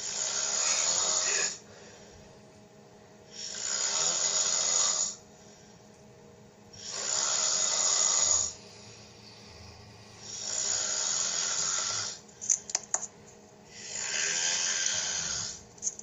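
A man snoring in his sleep: five long snores at an even pace, about one every three and a half seconds. A few sharp clicks fall between the fourth and fifth snores.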